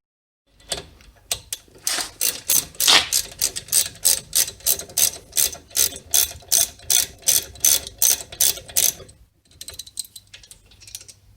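Ratchet wrench clicking steadily, about four clicks a second, as a brake caliper bolt is turned. The clicking stops about nine seconds in.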